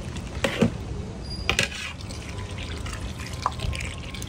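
A metal ladle stirring a thick, liquid curry in a large metal pot, with a few sharp knocks against the pot and liquid sloshing; near the end, liquid is poured from a jug into the pot.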